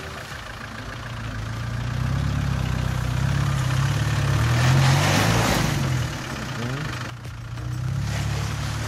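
Land Rover Discovery engine pulling the truck slowly up a rutted mud track, its note wavering up and down as the throttle is worked. It grows louder to a peak about halfway through, with a brief rush of noise there, dips for a moment, then picks up again.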